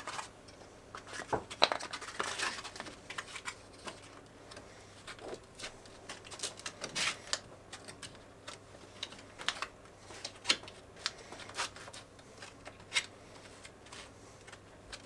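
Sandpaper being creased at the edges and wrapped tightly around a wooden sanding block by hand: scattered paper rustles and crinkles with short clicks and taps.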